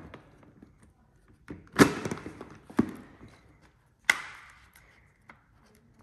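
Polymer Roni pistol carbine conversion kit being closed up around a Glock-style CO2 air pistol: three sharp plastic clacks about a second apart, the first the loudest, with light handling rattle between them.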